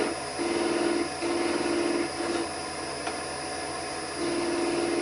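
Wood lathe running while a lathe knife cuts into the spinning wood in short passes, each cut adding a steady hum lasting about a second. Three cuts come close together, then a pause of nearly two seconds before another cut near the end.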